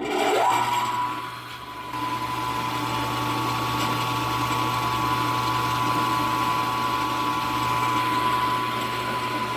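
Milling machine spindle motor starting up, rising in pitch over about half a second, then running at steady speed with a steady whine and a low hum.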